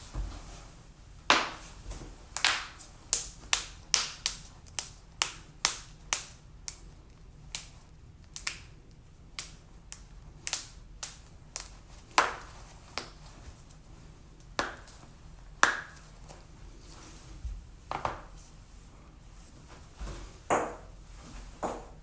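A long series of sharp joint cracks and pops, about thirty in all. They come in quick runs of one or two a second, thinning out in the second half, with a few much louder than the rest.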